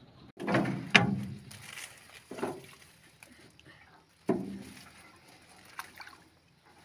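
A pole being jabbed into shallow water beside a small wooden boat: four sudden knocks and splashes, each dying away, the first two close together, then a few lighter clicks near the end.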